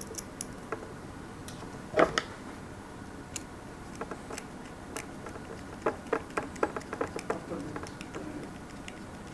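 Small screws being turned into a plastic DC connector housing, giving scattered light clicks and ticks. There is a sharper knock about two seconds in and a quick run of clicks around six to seven seconds in.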